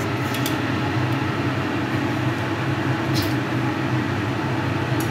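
A steady low hum with a broad hiss runs throughout. Over it, a metal spatula stirring the milk-and-carrot halwa in the pan makes a few light clicks and scrapes against it, a little after the start, about three seconds in, and near the end.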